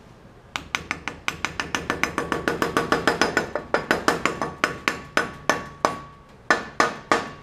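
A hammer tapping a metal grease cap onto a Legend car's front wheel hub: a quick run of ringing metal-on-metal taps, about four a second, with a brief pause near the end before a few more.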